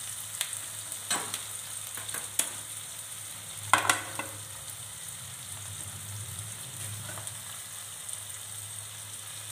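Shallots and green chillies sizzling steadily in oil in a nonstick kadai. A metal spatula scrapes and knocks against the pan a few times in the first four seconds, loudest a little under four seconds in, then only the sizzling goes on.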